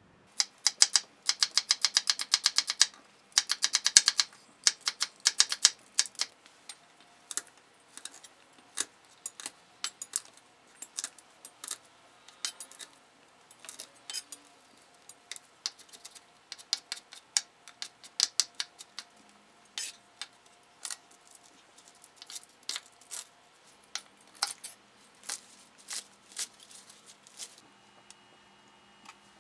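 Kitchen knife chopping on a wooden cutting board: fast, even runs of cuts for the first few seconds, then slower separate knocks as garlic cloves are cut.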